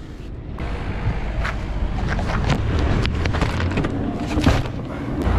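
Steady low rumble of a car heard inside the cabin, with a string of knocks and scrapes from a cardboard box being handled on the seat.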